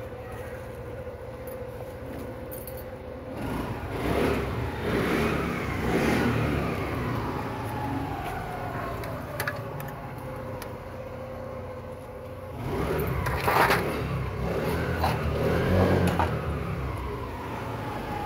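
Motor vehicles passing by twice, each growing louder and then fading as its pitch slowly falls.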